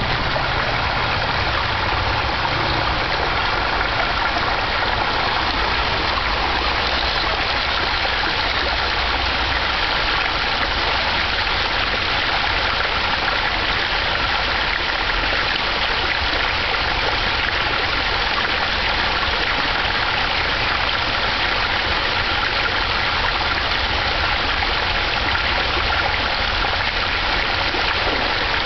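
Creek water running over rock close to the microphone: a steady, even rush with no breaks.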